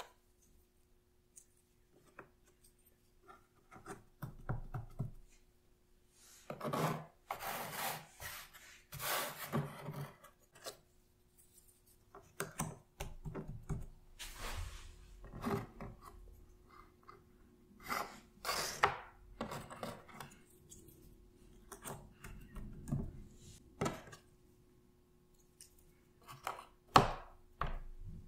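Cardboard jigsaw puzzle pieces being handled on a puzzle mat. They slide and rub across the surface with light taps as they are set into place, in irregular bursts, with a longer stretch of rubbing about a quarter of the way in.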